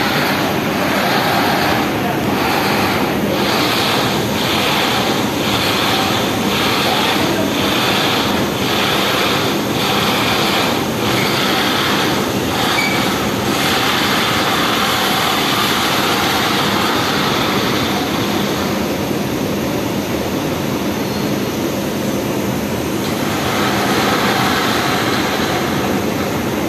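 Loud, steady running noise of industrial laundry machinery. For about the first half, a regular beat comes a little faster than once a second, then fades into the steady noise.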